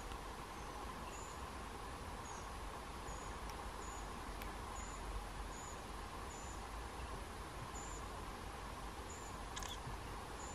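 Faint open-country ambience: a short, high chirp recurs irregularly every half second to a second over a steady low hum.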